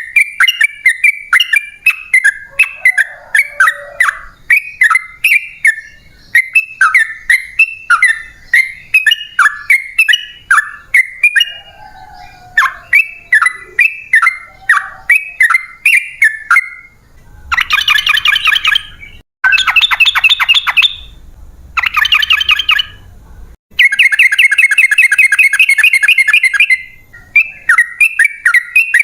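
Yellow-vented bulbul (trucukan) singing: short bubbly, chuckling phrases repeated about twice a second. A little past halfway it breaks into four bursts of long, very fast trilling, the prized 'ropel panjang', then returns to the chuckling phrases near the end.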